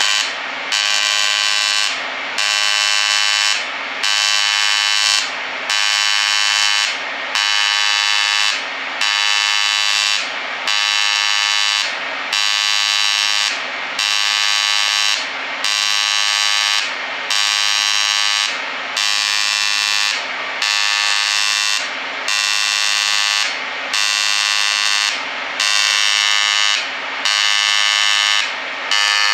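AC TIG welding arc on aluminum, an Everlast POWERTIG 255EXT run at full amperage on its advanced pulse setting: a loud, harsh electrical buzz that swells and dips in a regular beat about once a second.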